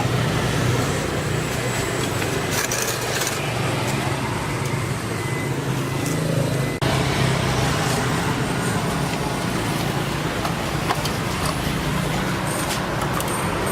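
Steady road traffic noise with engine rumble, with a brief break about seven seconds in.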